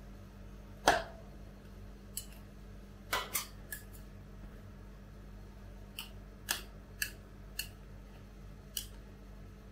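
Metal spatulas scraping and tapping on a stainless steel ice-cream-roll cold plate as the frozen ice cream is spread. A sharp clack comes about a second in, followed by about ten lighter, irregular scrapes and taps, over a faint steady hum.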